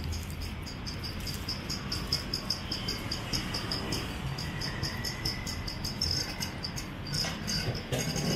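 An insect, cricket-like, chirping in a fast, even pulse of about four to five high-pitched chirps a second, over a low hum of street traffic.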